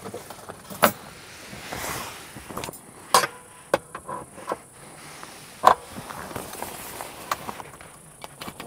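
Rooftop tent's fabric door being handled and rolled up: nylon rustling and swishing, with four sharp clicks, the loudest about one, three and almost six seconds in.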